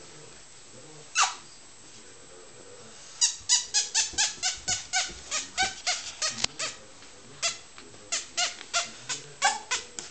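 Four-week-old Brittany spaniel puppies squealing: one falling squeal about a second in, then rapid runs of short, high-pitched yelps, about four a second, with a short break near the seventh second.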